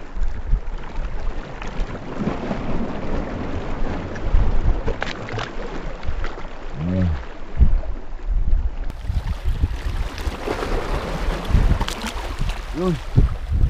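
Wind buffeting the microphone over seawater sloshing against rocks, with splashing as a released queenfish is dropped into the water and swims off.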